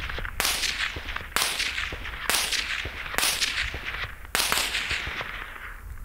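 Supersonic cracks of 5.56 bullets from a suppressed M4 passing close overhead at about 500 m: five sharp snaps, each about a second apart and each trailing off in a short echo. The suppressed rifle's report is much less than the crack.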